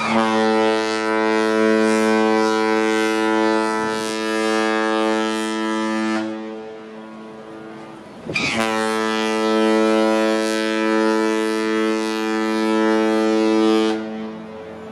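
Cruise ship's horn sounding two long, steady, low-pitched blasts, each about six seconds, with a short pause between them.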